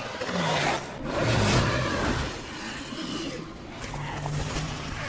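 Film sound effects for a giant snake: a rough, noisy rumble that swells and fades, loudest about a second and a half in.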